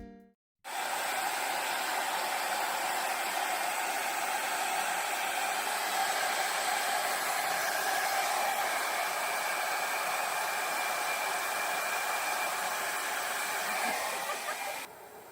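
Hand-held hair dryer running: a steady rush of blown air with a faint whine. It switches on just under a second in and cuts out shortly before the end.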